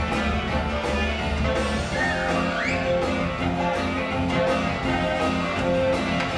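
Broadway pit band playing an instrumental rock-and-roll passage with a steady beat and guitar to the fore, with a brief swooping sound about two seconds in.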